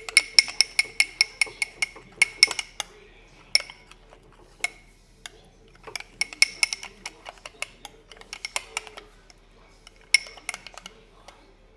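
A spoon clinking against a bowl in quick runs of taps, several a second, with short pauses between, as a thick lotion-and-shampoo mixture is stirred and scooped.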